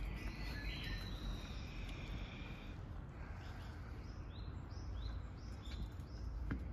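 Japanese bush warbler singing: one long whistled note, then from about four seconds in a run of short repeated notes, roughly two a second, over a steady low background rumble.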